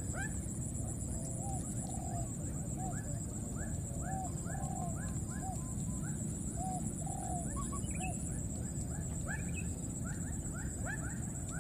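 Baby macaques calling in a run of short squeaky cries, several a second. From about a second in, the cries turn lower and sparser, and the quicker, higher series comes back near the end, over a steady low background rush.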